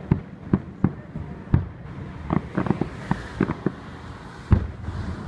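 Aerial fireworks going off in a quick, irregular series of bangs and pops, with a cluster of quicker pops midway and the two deepest booms about one and a half and four and a half seconds in.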